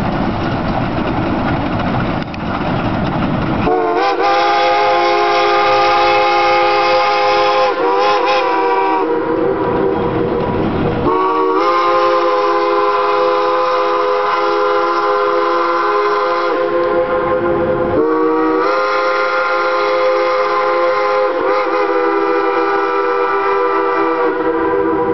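Shay No. 11 geared steam locomotive's whistle sounding three long blasts, a chord of several notes, each sliding up in pitch as it opens. Before the first blast only the rumble of the moving train is heard.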